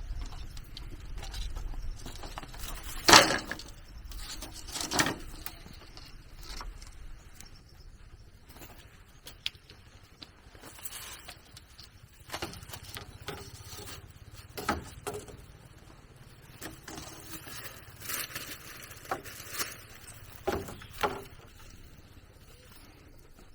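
Irregular knocks and rustling, with the two loudest knocks about three and five seconds in.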